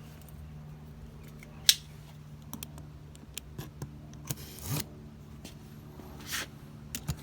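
Cardboard box being handled and opened: scattered clicks and brief rustling of the flaps, with one sharp click nearly two seconds in, over a steady low hum.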